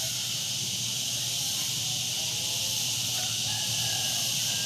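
Steady chorus of insects such as crickets or cicadas, an even high-pitched buzz that does not change.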